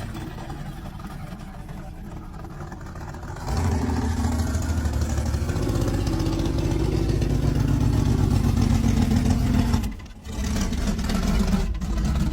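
Old Pontiac Firebird's engine running, jumping louder about three and a half seconds in as it is revved, with a brief dropout near the end.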